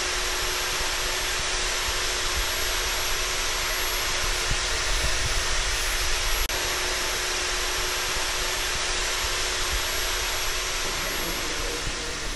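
Steady rushing air noise of a machine running, like a blower or fan, with a faint steady hum underneath. There is one small click about halfway through, and the noise starts abruptly.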